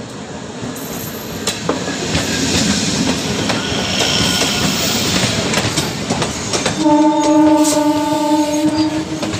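Passenger train rolling in along the platform, with a growing rumble and wheels clicking over the rail joints. Near the end a train horn sounds for about two seconds.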